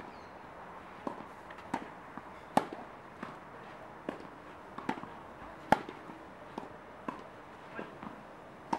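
Tennis rally: a tennis ball being struck by rackets and bouncing on the court, a string of sharp pops about one every second or less, the loudest several coming from the hitter nearest the microphone.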